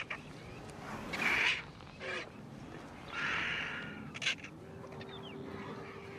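Wild bird calls: two rough, noisy calls, about a second in and again around three seconds, then a sharp click and a faint steady tone near the end.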